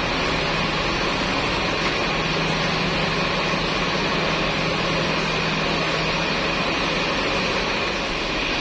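Steady mechanical drone: a low hum and a high whine over an even noise, unchanging.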